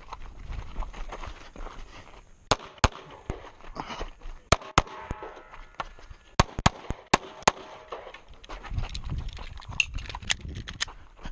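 Semi-automatic pistol shots fired in quick pairs, a double-tap on each target, with pauses of a second or two between pairs while the shooter moves; about a dozen shots in all, the later ones softer.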